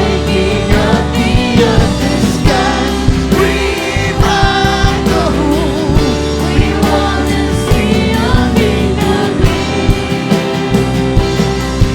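Christian worship song: a band plays under a singing voice, with sustained chords and a steady beat.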